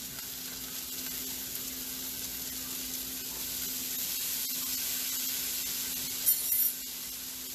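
Brussels sprouts, onions and garlic sizzling in a skillet of hot olive oil and chicken pan drippings: a steady frying hiss over a low steady hum, with a brief sharper sound near the end.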